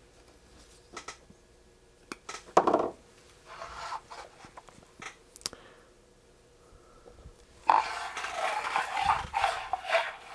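Wire and diagonal cutters being handled on a wooden workbench while lengths of wire are cut from a spool: scattered sharp clicks and taps, then a few seconds of dense rustling and rubbing starting about eight seconds in.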